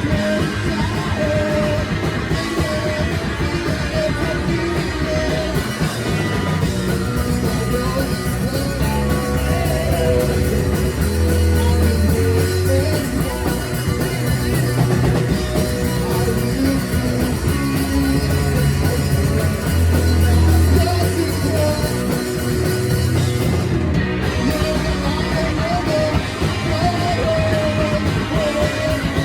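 Four-piece rock band playing live, with a singer's voice at the start and again near the end.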